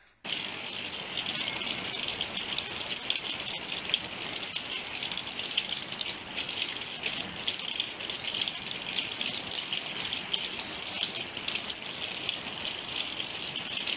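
Heavy rain falling: a steady hiss full of fine crackles, starting abruptly just after the start.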